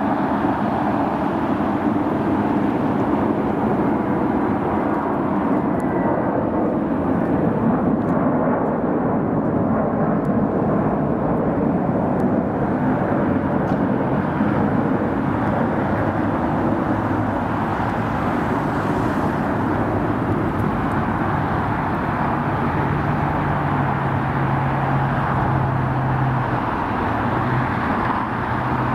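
Jet airliner engines, a steady rumble with no break. A low steady hum comes in about three-quarters of the way through.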